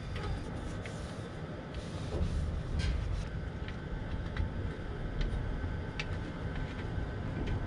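Steady low rumble with a faint steady hum underneath, and a few light metallic clicks as a compressor's Rota-Lock fitting nut is backed off by hand.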